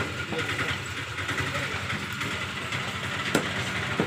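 A few sharp knife chops through chicken onto a wooden log chopping block, widely spaced, one about three seconds in and another near the end. Under them runs a steady engine hum, like an idling engine.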